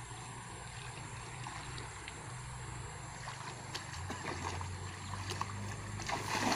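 Steady outdoor river-water ambience with a low hum underneath while someone stands in shallow water readying a cast net; near the end, water splashes as the net is swung and thrown.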